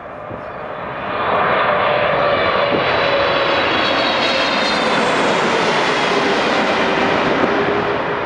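Boeing 777-300ER's twin GE90-115B turbofans passing low overhead on final approach, gear down: a loud jet rush that swells about a second in, with whining fan tones that slide down in pitch as the airliner goes by.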